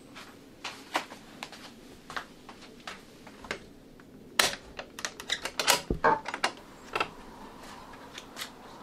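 Irregular light wooden clicks and taps from a small wooden box being handled, then a quick run of louder clicks and rattles with a dull thump about six seconds in, as the old wooden door is unlatched and swung open.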